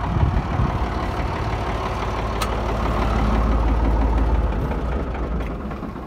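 Farm tractor's diesel engine idling with a steady low rumble, with a single sharp click about halfway through.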